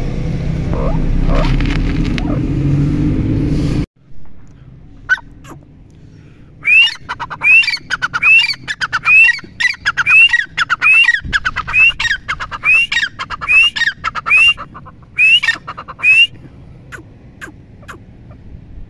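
Grey francolin calling: a loud run of sharp, high, repeated calls about two a second for roughly ten seconds, preceded by a few scattered short notes. Before that a steady low rumble fills the first few seconds and cuts off suddenly.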